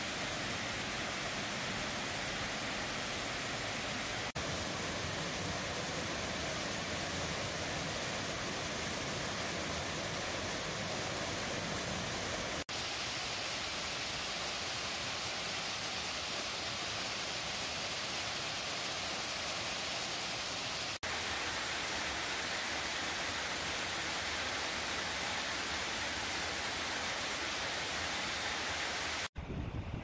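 Waterfall pouring over rock ledges into a pool: a steady rush of falling water, its tone shifting slightly at cuts about every eight seconds. Just before the end it gives way to wind buffeting the microphone.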